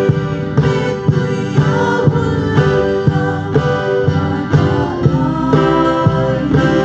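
Live gospel band: several women singing together into microphones over a strummed acoustic guitar, with a cajón, bass guitar and keyboard, the beat falling about twice a second.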